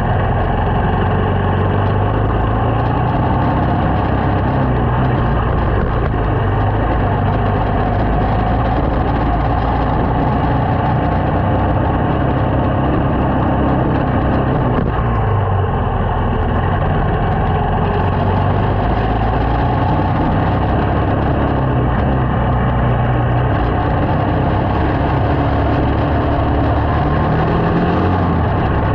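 Small motorcycle engine running while the bike is ridden along, its low note shifting a little with speed, under steady wind and road noise.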